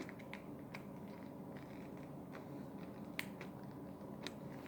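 Faint, scattered plastic clicks and taps as foam darts are pushed into a toy M1911 pistol's magazine, about five in all, over a steady low hum.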